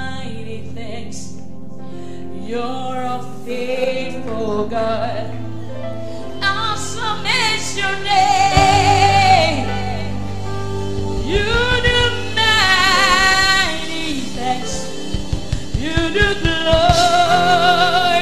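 Live gospel worship song: a woman sings lead with vibrato on long held notes, over sustained keyboard chords. Low drum beats come in around the middle and again near the end.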